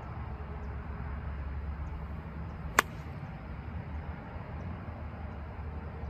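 A golf club strikes the ball once on a full swing: a single sharp click a little under three seconds in, against a steady low rumble.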